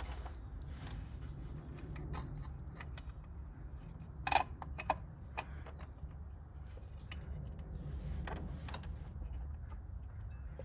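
Scattered light metallic clicks and clinks of bolts and hand tools as a water pump is fitted to an engine, with a sharper pair about four and a half seconds in, over a steady low hum.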